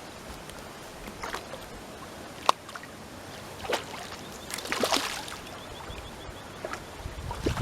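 Water splashing and sloshing in short irregular bursts, with a few sharp clicks: a hooked carp thrashing at the surface as it is played in.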